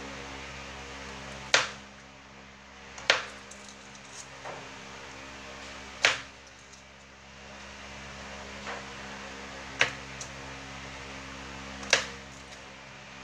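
Kitchen knife slicing garlic cloves on a plastic cutting board: five sharp knocks of the blade striking the board, one every two to three seconds, with a few fainter taps between them, over a steady low hum.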